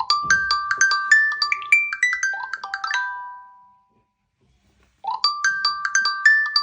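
Smartphone ringtone or alarm tone: a quick melody of short, struck notes that fades out, then starts over about five seconds in after a pause of about a second.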